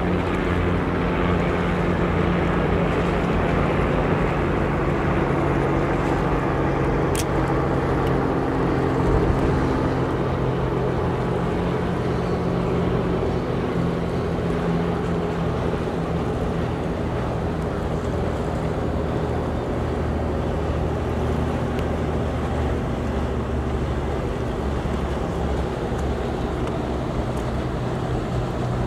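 Small motorboat's engine running as it passes close by, a steady low hum that is strongest in the first ten seconds and then eases off, over wind and water noise.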